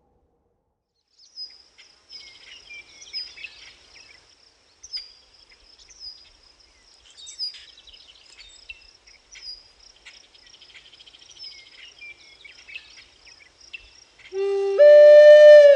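Crickets chirping steadily with scattered bird calls. Near the end a flute comes in on a held low note, then steps up to a higher one.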